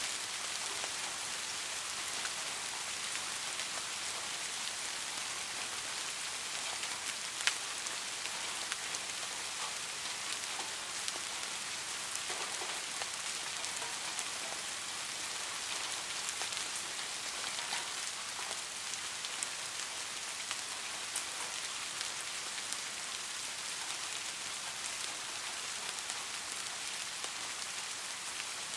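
Steady rainfall: a dense, even hiss of falling rain with scattered sharper drop ticks, one louder drop about seven seconds in.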